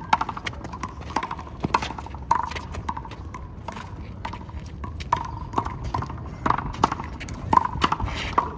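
Handball rally: a rubber ball slapped by hand and smacking off the wall, a string of sharp, irregularly spaced hits.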